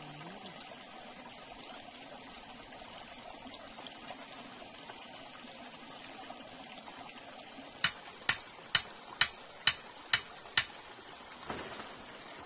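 Small forest stream running steadily over rocks. About eight seconds in, seven sharp knocks come evenly, about two a second, much louder than the water.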